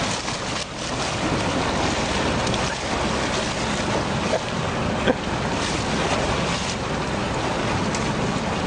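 Steady rush of wind on the microphone and sea water churning and splashing alongside a sportfishing boat's hull, with a couple of short knocks near the middle.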